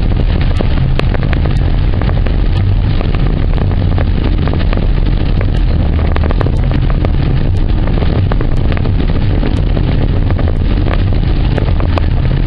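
Inside a car's cabin at highway speed in heavy rain: steady road and engine drone under a dense wash of rain on the windshield and roof, with many sharp ticks of drops striking the glass.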